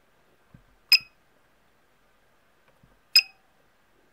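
MaxxFan control board's electronic beeper giving two short high beeps about two seconds apart as the in/out button on its keypad is pressed, each just after a faint tap of the press. With them comes the faint little ping of the board's relay that reverses the fan motor's direction.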